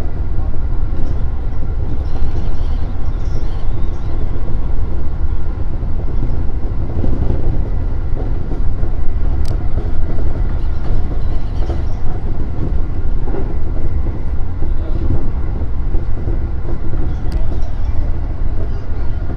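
E233-3000 series electric commuter train running at speed, heard from inside the front car: a steady rumble of wheels on rail, with two short sharp clicks, one about halfway through and one near the end.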